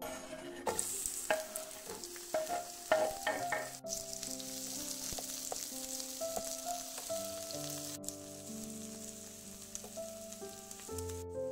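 Sliced red onion sizzling in hot oil in a frying pan, a steady high hiss that starts under a second in. A few light clicks and taps come in the first three seconds as the onion is stirred with a wooden spatula.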